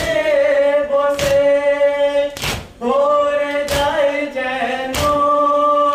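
Men singing a Muharram mourning elegy (noha) together in long, held lines. It is set to a steady beat of chest-beating (matam), with one sharp strike about every second and a quarter.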